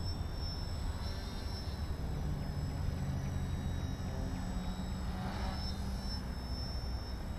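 The Addiction RC aerobatic plane's motor and propeller droning from a distance while it hangs nose-up in a hover. A low steady tone comes in about two seconds in and fades near the end, over a constant low rumble.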